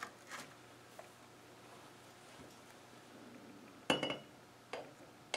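Light metallic clinks as the steel worm shaft and its bearing are fitted into the Rover 3500 steering box housing: a few faint ticks in the first second, then a louder, briefly ringing clink about four seconds in and a second clink a moment later.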